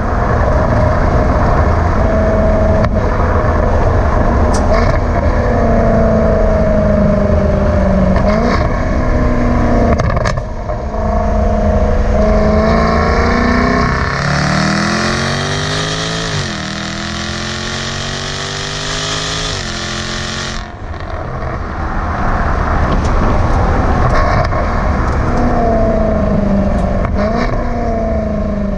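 Exhaust note of a 2017 Jaguar F-Type SVR's 5.0-litre supercharged V8 on the move, climbing in pitch under acceleration and dropping at each upshift of its eight-speed automatic. About halfway there is a hard pull and shift, a sudden lift-off a few seconds later, then steadier running with the pitch easing down near the end.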